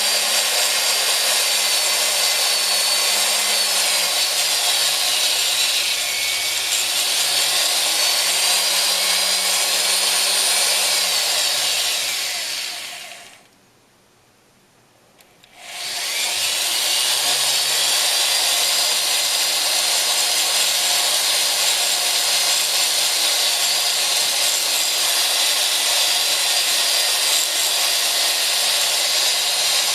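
Jeweller's rotary handpiece spinning a brown rubber polishing wheel, smoothing the prongs of a ring. The motor's pitch sags and recovers with changes in speed; about halfway through it stops for two seconds, then starts again and runs at a steady speed.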